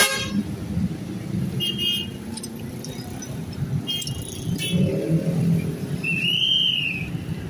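Street traffic: engines of passing cars, motorcycles and motorized tricycles running, louder as one goes by close about five seconds in. A short high-pitched squeal sounds near the end.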